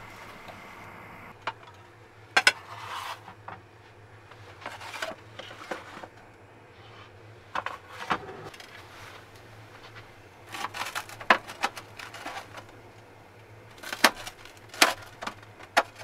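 A metal spatula scraping and clicking against a frying pan on a gas stove, with plates and utensils knocked about on a small counter: scattered short clicks and scrapes over a steady low hum.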